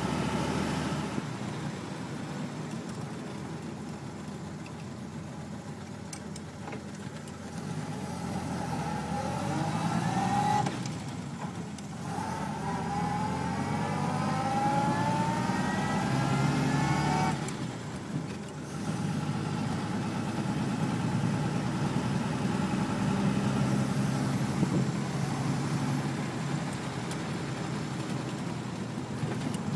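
Willys-Knight sleeve-valve engine pulling the car along, heard from inside the open cabin with road and wind noise. The engine note rises, drops away briefly about eleven seconds in, rises again, drops once more about eighteen seconds in, and then runs fairly steadily, as the car works up through its short gears.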